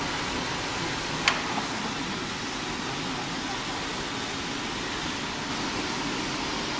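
Steady hiss and hum of machinery running in a workshop, with one sharp click a little over a second in.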